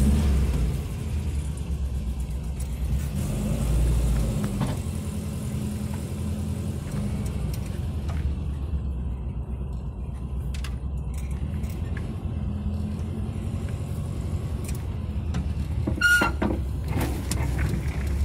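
1964 VW split-window bus's rear-mounted air-cooled flat-four engine running steadily as the bus pulls away and drives slowly, heard from inside the cab. There is jingling in the cabin, and a brief squeak and clatter near the end.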